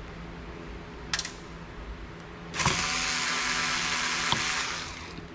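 Small Black+Decker cordless electric screwdriver running steadily for about two seconds as it backs a Torx screw out of a hard drive's circuit board. There is a sharp click about a second in and a few more clicks near the end.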